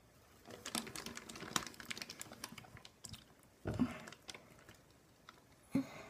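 Close-up crackling and clicking as a safety pin is worked through an earlobe by hand: a dense run of fine clicks, then two louder, duller bumps, one in the middle and one near the end.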